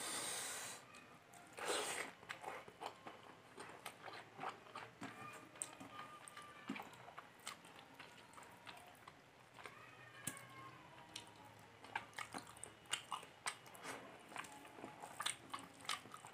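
Quiet, close-miked chewing of rice and fish curry, with many small mouth clicks and smacks. Fingers mix rice on a steel plate, with a couple of brief rustling scrapes in the first two seconds.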